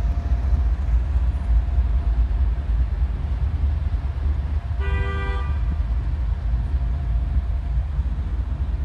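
Diesel locomotive rumbling steadily as it approaches slowly, with one short toot of its multi-chime air horn, a chord of several tones, about five seconds in.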